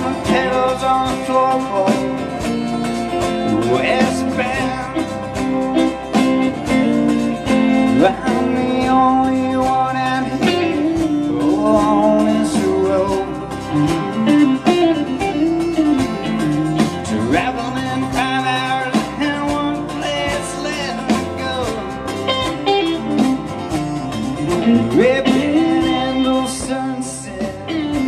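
A live country band playing: acoustic guitar, electric guitar, electric bass and drum kit together.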